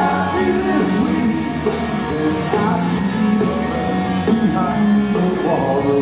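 Alternative rock band playing live: electric guitars, bass and drums, with a man singing lead, heard from the audience.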